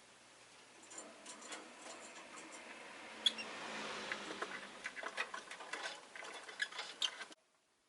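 Rosy-faced lovebird making irregular small clicking and scratching sounds, over a hiss of passing street traffic that swells and fades. The sound cuts off abruptly near the end.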